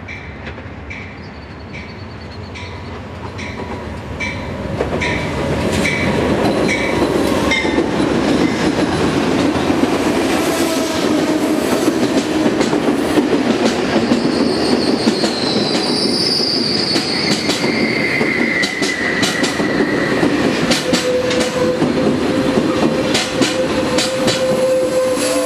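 Amtrak passenger train of bilevel Superliner cars rolling past close by. Its wheels click over the rail joints, with squeals that come and go and slide in pitch. A bell dings steadily about once every three quarters of a second as the train comes in, stopping after about seven seconds, when the train is passing loudly.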